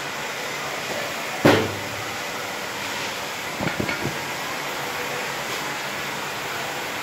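Aluminium-frame flat belt conveyor running with a steady mechanical noise. A sharp knock about a second and a half in, and a few lighter knocks around four seconds.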